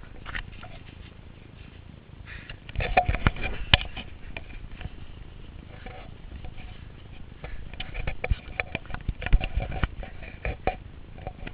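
Rustling and sharp crackling clicks as a golden retriever scrambles through dense ivy on a slope. Louder scuffling comes in bursts about three seconds in and again near the end.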